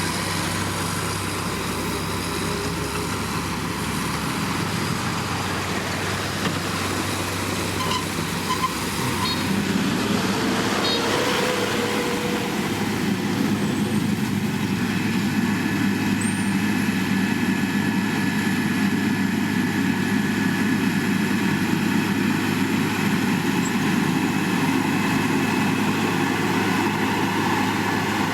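Heavy diesel road-construction machinery running steadily; the engine sound gets louder about ten seconds in, with a brief rising whine.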